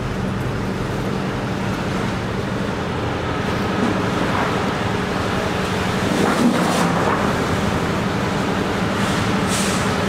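Machinery running steadily with a low droning hum.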